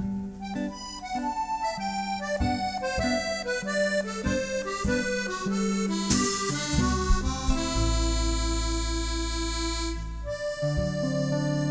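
Live small-band jazz with an accordion playing a quick instrumental melody over drums and bass. A cymbal crash comes about six seconds in, followed by a long low held note.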